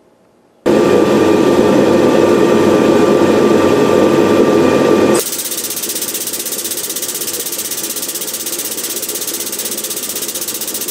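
Air-assisted 20-ton hydraulic bottle jack's air pump running as the press works hot steel. It starts suddenly as a loud steady buzz, and about five seconds in it changes to a quieter, rapid, even pulsing.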